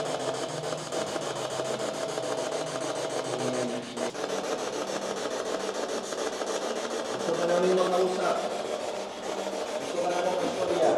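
Steady raspy static, with faint, indistinct voice-like fragments rising out of it about eight seconds in and again near the end, which the ghost hunters take for a child's voice.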